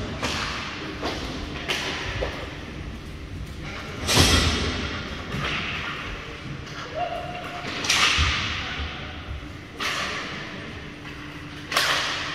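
Sharp knocks and thuds that ring on after each hit: puck and sticks striking the rink boards during hockey play. Three loud bangs come about four seconds apart, with smaller knocks between them.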